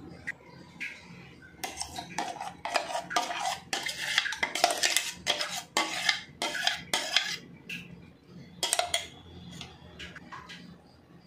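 Stainless-steel mixer-grinder jar clinking and scraping against a glass bowl while a thick ground paste is tipped and scraped out of it: a rapid run of sharp metal-on-glass clinks for several seconds, then a few more clinks.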